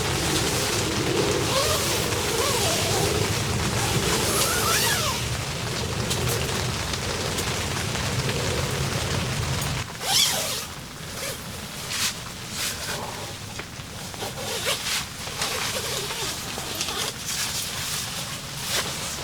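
Heavy rain falling steadily over a deep rumble. About ten seconds in, the rumble cuts off suddenly, leaving scattered separate drops and taps.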